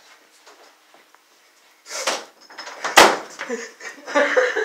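A single sharp knock about three seconds in, with short bursts of hissing noise around it.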